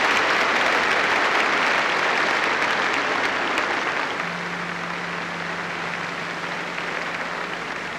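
A large audience applauding, strong at first and gradually fading over the second half.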